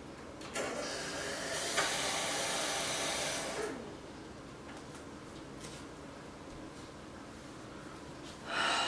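Kitchen tap running into a glass for about three seconds, a steady rushing hiss that then stops. A shorter rush of noise comes near the end.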